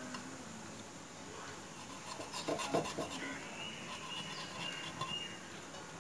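A knife scraping and cutting into a catfish's firm body on a cutting surface, with a few short scratchy strokes about two to three seconds in.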